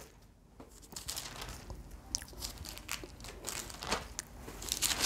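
Thin Bible pages being leafed through: soft rustling and crinkling paper, with a few sharper page crackles, the loudest near the end.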